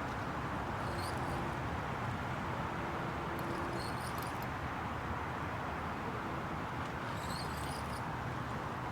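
Steady wind noise on the microphone, with short bursts of high bird chirps about a second in, around four seconds and around seven seconds.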